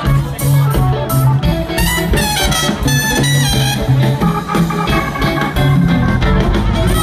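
A live band plays loudly and steadily: electric guitar, bass, drums and keyboards, with a trumpet among them.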